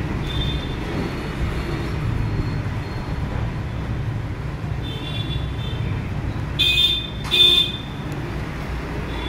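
Background road traffic rumbling steadily, with vehicle horns tooting now and then and two louder honks about two-thirds of the way through.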